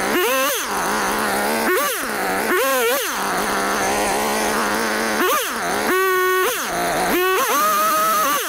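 Two-stroke chainsaw blipping its throttle again and again, each rev rising and falling back to idle, while cutting small logs. Twice in the second half the engine holds a steady high speed for about half a second.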